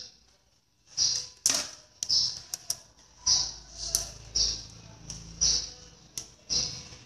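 A husky puppy playing on a hard floor: a run of short, sharp clicks and clatters, about one or two a second, from its claws and the plastic hanger and bottle it knocks about.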